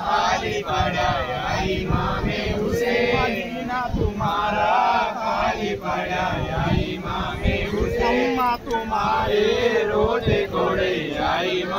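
A group of men chanting together in unison, their voices rising and falling continuously.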